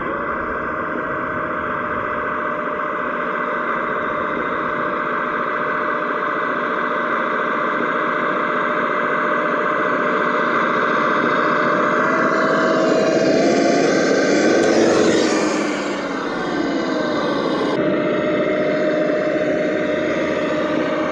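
Simulated engine sound played through the speakers of a Sense Innovations ESS Dual Plus sound module on a Traxxas TRX4 scale crawler, a steady, slightly distorted drone. It grows louder and busier as the truck comes close, drops in pitch for a moment after that, then settles back to the steady drone.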